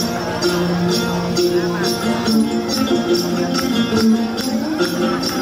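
Then folk music from an ensemble of đàn tính lutes, with a jingling percussion stroke on a steady beat about twice a second.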